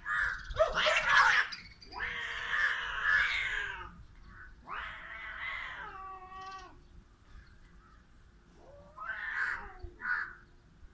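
Two domestic cats caterwauling in a territorial fight. A harsh, noisy screech in the first second and a half gives way to long drawn-out yowls that fall in pitch, around two and five seconds in, and a shorter yowl near the end.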